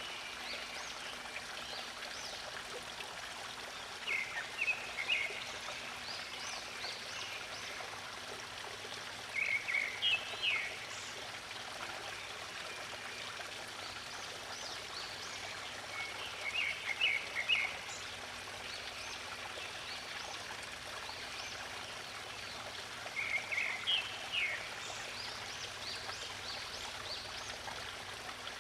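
Stream water flowing steadily, with a songbird singing a short phrase four times, about every seven seconds, over fainter high chirps.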